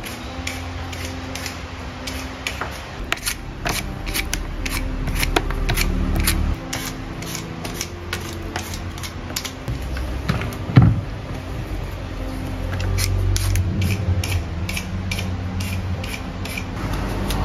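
Hand vegetable peeler scraping the skin off a raw sweet potato in quick, repeated short strokes, with one loud thump about eleven seconds in.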